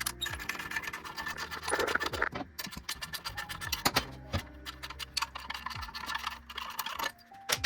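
Metal hand tools working the front engine-mount bolts of a motorcycle frame: scattered clicks, knocks and scraping as the bolts are loosened and pulled.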